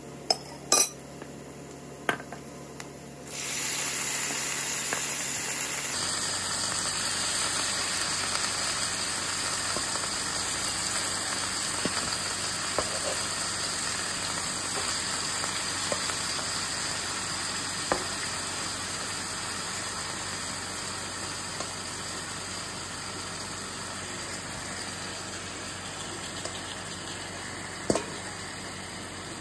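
Garlic and onion frying softly in oil with a few light clicks; about three seconds in, marinated beef slices go into the hot pan and a much louder, steady sizzle takes over, with an occasional knock of utensil or bowl on the pan.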